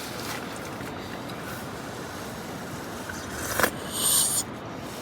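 Steady background hiss, broken about three and a half seconds in by a sharp click and a short high hissing burst just after.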